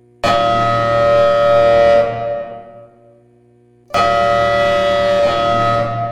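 Federal Signal Thunderbolt siren sounding fire-alarm code: two blasts of a steady multi-tone chord. Each blast cuts in sharply, holds for about two seconds, then dies away over about a second, the first a quarter-second in and the second about four seconds in, with a faint steady tone continuing between them.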